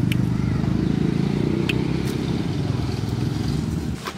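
Low, steady rumble of a motor vehicle engine, dying away about four seconds in, with two faint clicks over it.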